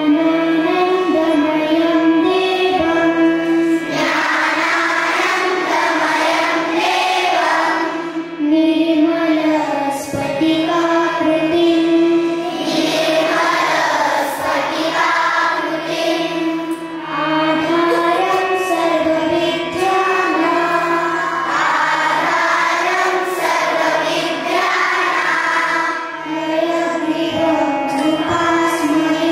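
Group of children singing a prayer song in unison, amplified through microphones, over a steady held drone.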